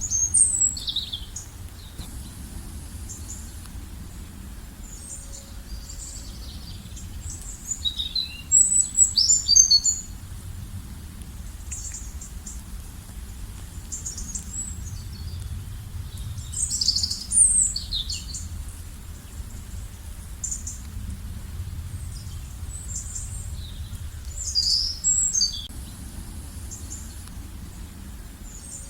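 Songbirds singing: a loud burst of fast high chirps and trills comes about every eight seconds, four times, with fainter chirps in between. A steady low rumble runs underneath.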